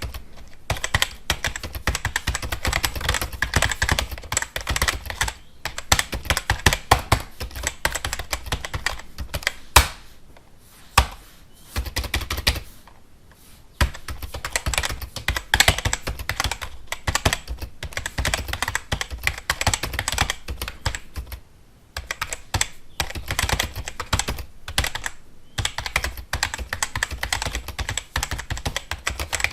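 Typing on a computer keyboard: a fast, continuous run of key clicks, broken by short pauses about ten, thirteen and twenty-two seconds in.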